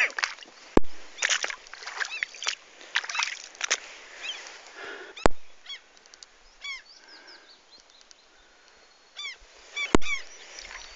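Birds calling repeatedly with short, arched, honking calls, over quiet outdoor background. Three sharp clicks come about a second in, midway and near the end.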